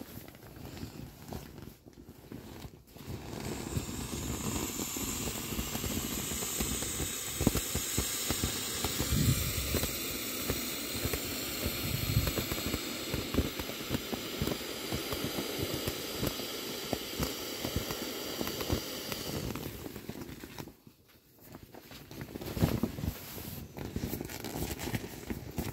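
Air hissing steadily out of an inflatable matte-vinyl toy's single valve while its chambers are pressed to deflate it, with crinkling and rubbing of the vinyl. The hiss stops about three-quarters of the way through, and the crinkling and handling of the vinyl go on.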